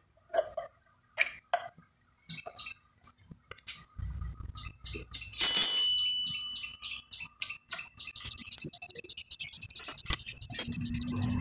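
Scattered clicks and clinks of hand tools on metal as the cylinder head cover nuts and bolts are undone, with one loud ringing metallic clink about five seconds in. A bird chirps rapidly and repeatedly in the background, steadily from about halfway through.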